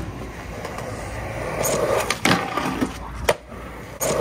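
Skateboard wheels rolling over smooth concrete, a steady rumble that swells as the board picks up speed, with a few sharp clacks along the way.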